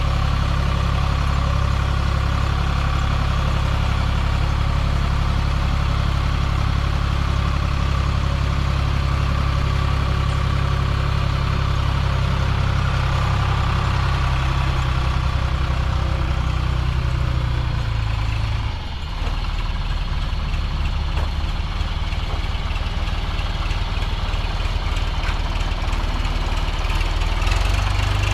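Engine running steadily; about two-thirds of the way in its note drops and becomes rougher, as if the throttle was eased back.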